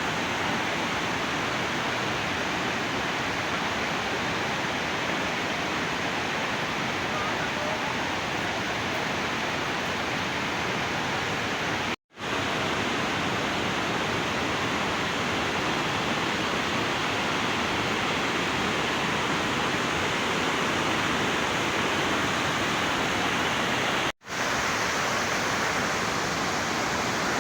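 River water rushing steadily, a dense even hiss like a waterfall or rapids. It breaks off to silence for an instant twice, about twelve seconds in and again near the end.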